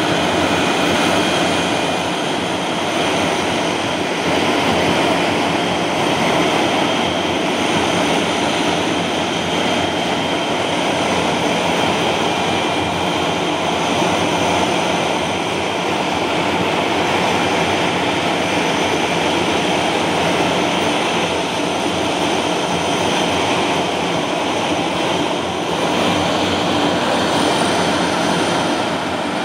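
Bluebird K7 hydroplane's Bristol Siddeley Orpheus jet engine running steadily on a static engine run: a loud, even rushing roar with a steady high turbine whine.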